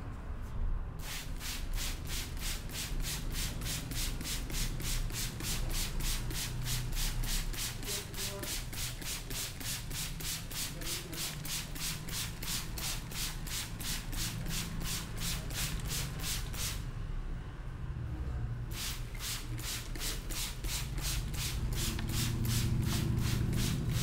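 Hands rubbing briskly through the hair and over the scalp in a head massage: a rhythmic rasping of about four strokes a second that pauses for a couple of seconds about 17 seconds in, then carries on.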